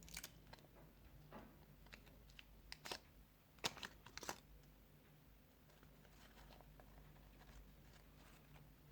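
Near silence: a few faint rustles and taps from hand handling in the first half, over a low steady hum.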